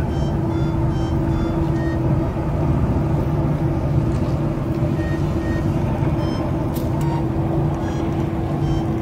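A steady, low engine-like drone with a constant hum, and a few faint short high-pitched tones over it.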